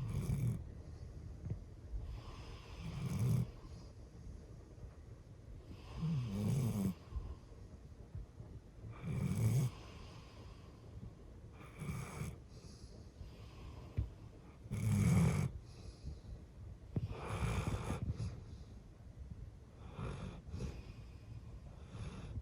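Golden retriever snoring in her sleep, one snore roughly every three seconds with quieter breathing in between.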